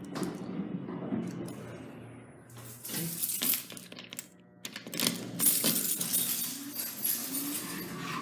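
Metallic clinks and rattles from hands working the elevator car's fan switch panel, coming in short clattering bursts about three seconds in and again around five to six seconds in.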